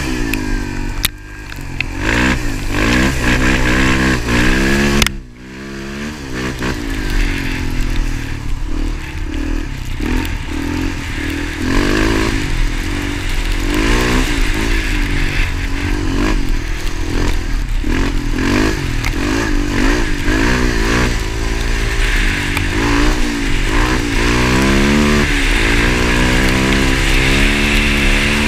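Motorcycle engine under way, revving up and easing off again and again, its pitch climbing and falling with throttle and gear changes. The throttle is shut sharply about a second in and again about five seconds in.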